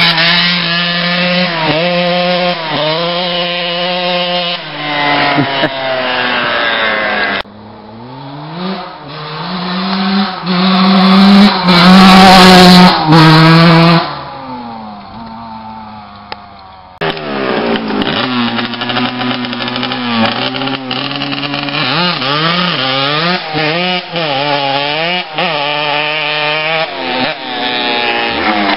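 Two-stroke motocross bike engines revving hard and riding past in several short clips. The pitch climbs and drops repeatedly as the riders open and close the throttle through the gears. The loudest, closest pass comes near the middle.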